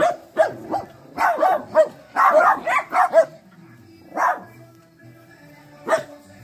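Dogs barking during rough play: a quick run of short barks in the first three seconds, then two more single barks, one about four seconds in and one near the end.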